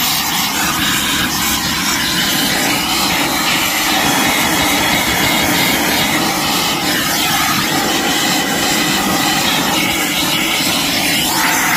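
Blue-Point compressed-air vacuum running steadily with a loud rushing hiss, sucking debris out of the engine valley of a 6.5 diesel.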